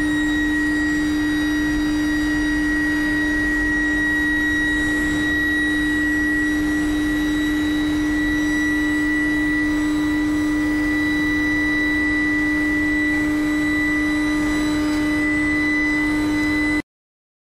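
Billet induction heating furnace running: a steady electrical hum with a high steady whine over it, cutting off suddenly near the end.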